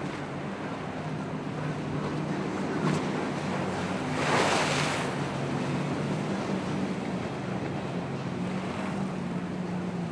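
Motorboat engine running steadily through rough inlet water, with waves and wind noise on the microphone. A loud splash rushes up about four seconds in and dies away within a second.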